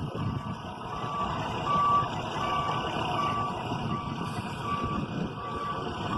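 Reversing alarm of a heavy construction vehicle beeping at one steady pitch, a little more than once a second, over the low rumble of its diesel engine.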